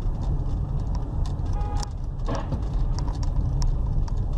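Road and engine noise inside a moving car's cabin, picked up by a dashcam: a steady low rumble with scattered light clicks and rattles.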